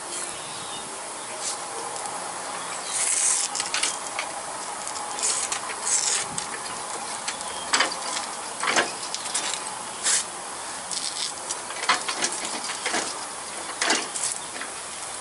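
Soapy water squirted from a squeeze bottle onto a lawnmower caster tire's rim for a soap test of a rim leak: short hissing spurts, then irregular crackling clicks from the wet foam. Insects chirp faintly behind.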